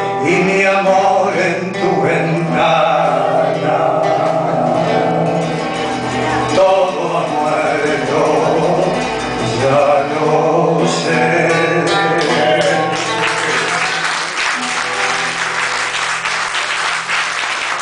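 A man sings to his own acoustic guitar accompaniment. The song ends about thirteen seconds in, and the audience applauds.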